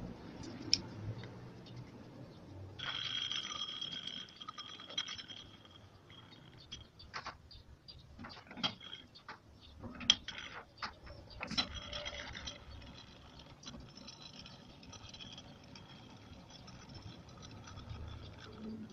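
Three-jaw lathe chuck being adjusted by hand with its chuck key, the scroll and pinion turning to move the jaws. There is a continuous metallic rattle for a few seconds starting about three seconds in, then scattered sharp metal clicks and knocks.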